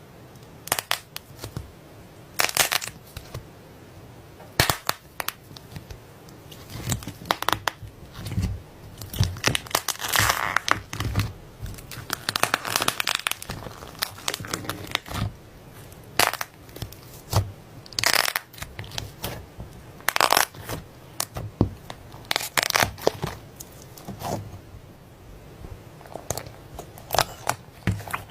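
Slime being squished and played with, giving irregular crackles, clicks and pops.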